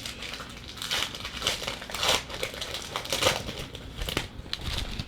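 Plastic trading-card pack wrapper crinkling and rustling as it is handled, in irregular bursts that stop near the end.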